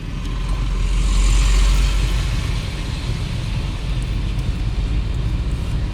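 Steady rumble and hiss of a vehicle in motion, like road noise heard from a car.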